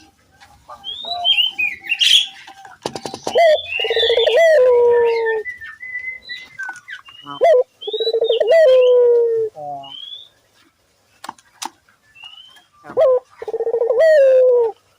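A puter turtle dove cooing three times, each call a short rising note running into a long, slightly falling purring coo. Small birds chirp higher up between the coos.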